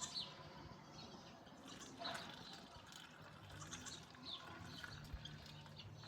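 Quiet farmyard ambience with a few faint, short high chirps and a single light knock about two seconds in.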